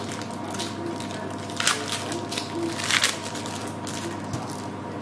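Rustling handling noise, two short bursts about a second apart, over a faint steady hum.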